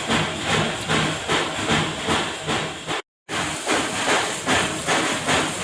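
Factory machinery running in a steady rhythm, a hissing, chuffing noise pulsing about twice a second, broken by a short total silence about three seconds in.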